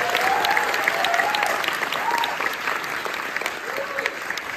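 Theatre audience and cast applauding, with a few cheering voices in the first couple of seconds. The clapping gradually dies down.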